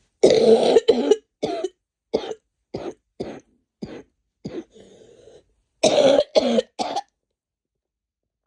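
A woman coughing while sick: a hard burst of two or three coughs, then a string of single coughs about every half second, and a second loud burst of three coughs near the end.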